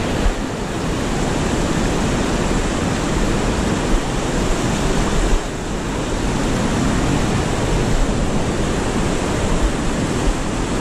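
River rapids rushing over rock ledges: a steady, even wash of white water.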